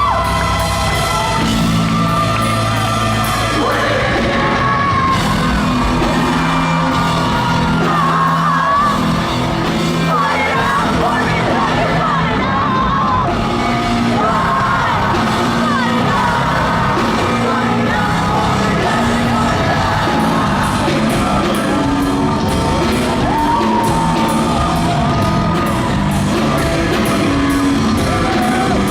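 A post-hardcore rock band playing live and loud in a large concert hall, with drums, bass and guitars under singing and yelled vocals.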